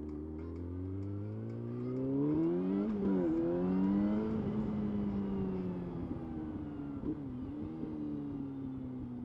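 Yamaha R6 inline-four engine accelerating hard: the pitch rises for about three seconds, dips sharply at an upshift, then holds. A second quick dip near seven seconds follows, and the engine eases off with falling pitch toward the end.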